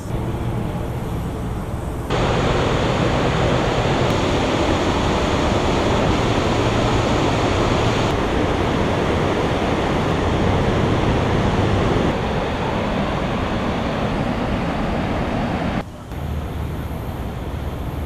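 Churning, rushing river water below a dam: a steady, fairly loud rushing noise that jumps in level at edits about two seconds in and drops again near the end, with a quieter low rumble at the start and end.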